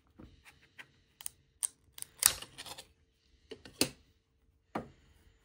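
Irregular sharp clicks and snaps as a 3D-printed plastic model is pried loose from a flexible metal build plate, the plate flexing and the print cracking away from its surface. The loudest snaps come a little after two seconds and just before four seconds.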